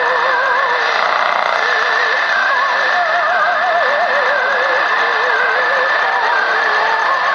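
An old Filipino song coming from a Sonatec PRI-037U portable radio's speaker on AM: a wavering melody with vibrato under a steady hiss of static, the sound cut off short of the treble.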